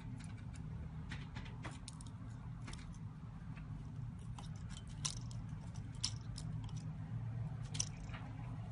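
Irregular light clicks and taps of small repair tools and parts being handled during iPhone disassembly, the sharpest about five, six and eight seconds in, over a steady low hum.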